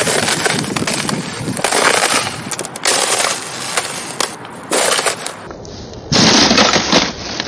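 Thin ice over frozen puddles cracking and crunching under sneaker footsteps, in several loud bursts of snapping and crackling, one per step.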